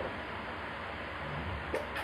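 A hollow plastic toy egg being handled: two light, sharp plastic clicks near the end, over a steady background hiss.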